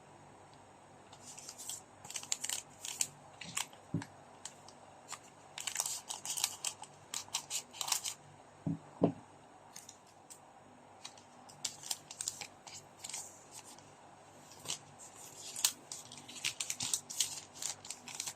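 Trading card packs and cards being handled and opened: irregular clusters of short crinkling, tearing and clicking sounds.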